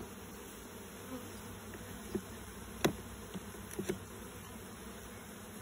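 Honeybees buzzing around an open hive box, with a few sharp clicks of a metal hive tool prying at the wooden frames, the loudest about three seconds in.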